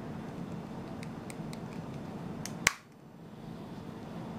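A few light clicks as a spice jar of dried dill is shaken over a bowl, then one sharp click a little past halfway, over a steady low background hum.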